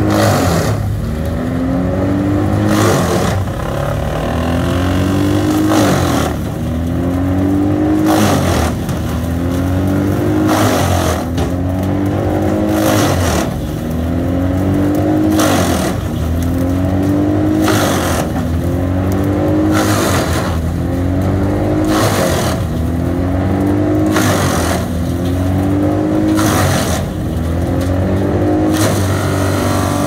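Bandit Intimidator 12XP wood chipper with a 120 hp Cat diesel engine chipping a pine log. A burst of chipping noise comes about every two and a half seconds, each one pulling the engine down, after which it climbs back up in pitch. Near the end the engine settles to a steady run as the log is used up.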